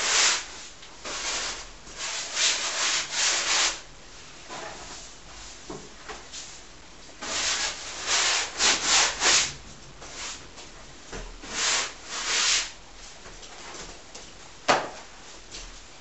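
Paint being scrubbed and rubbed across a large stretched canvas, a rough scratchy friction sound in spells of quick strokes with short pauses between. A single sharp knock near the end.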